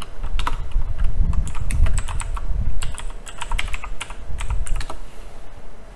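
Typing on a computer keyboard: a quick, irregular run of keystrokes that stops near the end.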